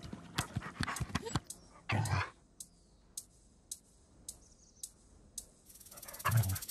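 A grey wolf moving over the forest floor, with quick clicks of footfalls and twigs in the first second or so, then a loud breathy exhalation about two seconds in and another near the end, with a few faint clicks between.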